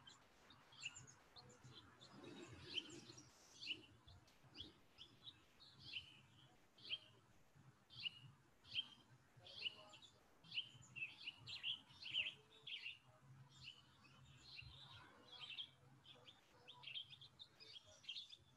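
Faint chirping of small birds: many short, high chirps in a loose, irregular run, getting busier about halfway through.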